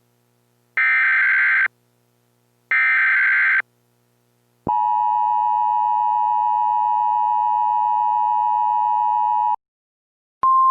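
Emergency Alert System header data bursts, two short raspy digital bursts about a second apart, followed by the steady two-tone EAS attention signal held for about five seconds. Just before the end, a single steady tone starts.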